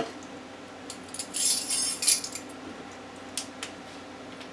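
Metal measuring spoons on a ring clinking and rattling in the hand while a small extract bottle is opened: a sharp click, then about a second of dense rattling, then two light clicks.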